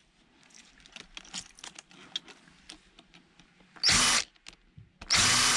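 Power drill-driver running in two short bursts about a second apart, driving screws out of a scrap electronic unit being taken apart. Faint clicks of handling come before it.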